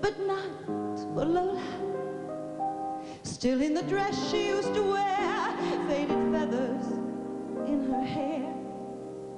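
A woman singing a slow, held line with vibrato over instrumental accompaniment.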